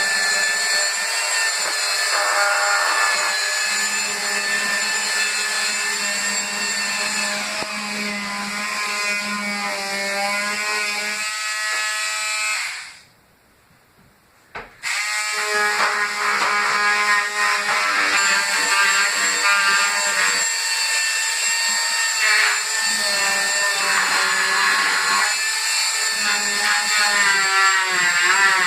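Electric sander running on wooden kitchen cabinets, a steady motor whine that wavers slightly in pitch. It stops for about two seconds midway, then starts up again.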